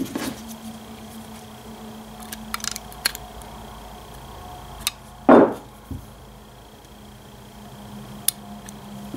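Light clicks and taps of small metal Ford 2N distributor parts and hand tools being handled on a workbench, with one louder knock about five seconds in, over a steady background hum.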